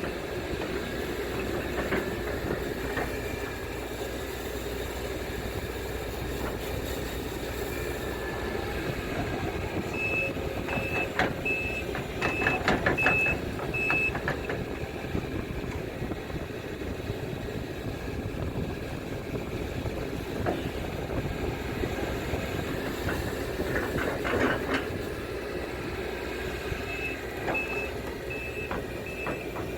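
Case CX210D excavator's diesel engine running steadily. Its travel alarm sounds twice, each time as a run of high beeps about two a second: the machine is tracking. Sharp knocks come with the first run of beeps and again later.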